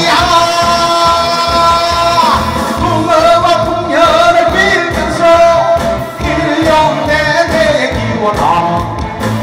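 Man singing a Korean song live into a handheld microphone over instrumental accompaniment with a steady beat. He holds one long note for about the first two seconds, then sings shorter phrases.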